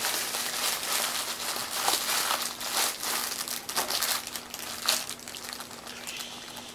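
Plastic packaging crinkling and rustling as it is handled and folded, in irregular crackles with a few sharper snaps.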